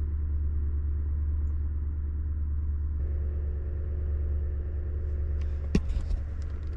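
Vehicle engine running with a steady low hum, heard as from inside the cab, with a few sharp clicks near the end.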